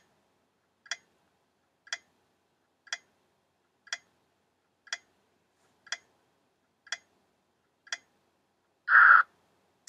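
Quiz countdown timer ticking once a second, nine ticks counting down the ten seconds of answer time. Near the end comes a short, louder noisy burst as the time runs out.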